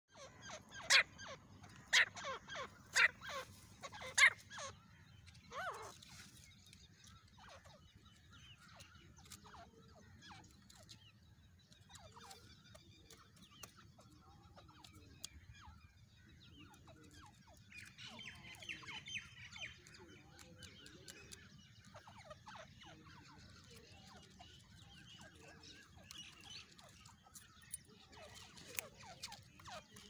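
Grey francolin calling loudly: a run of about five sharp calls roughly a second apart at the start, then only faint scattered bird chirps.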